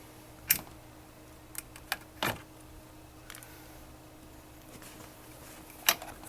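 A few short, sharp clicks and knocks of the massage chair's actuator hinge pin as it is pushed up and out of its bracket: one about half a second in, two small ticks and a stronger knock a little after two seconds, and another near the end.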